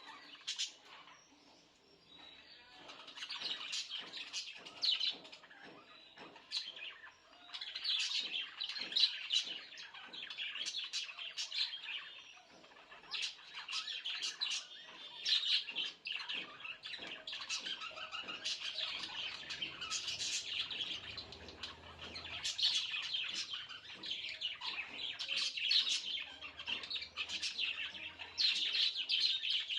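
Pet budgerigars chirping and chattering in rapid, high-pitched runs of calls, with brief lulls near the start and about twelve seconds in.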